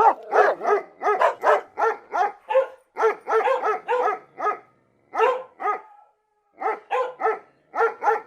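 A dog barking in a rapid series of short, high-pitched yaps, about three a second, with a brief pause about three quarters of the way through.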